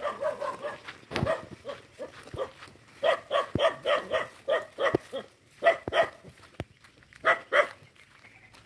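A dog barking in runs of short, sharp barks: a few at first, a quick run of about seven barks halfway through, then two pairs near the end. Scattered footsteps on a dirt path.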